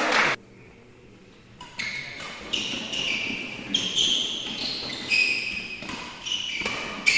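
Badminton doubles rally: rackets striking the shuttlecock about every half-second to second, each hit sharp with a short ringing ping. The rally starts after a brief quiet about a second and a half in.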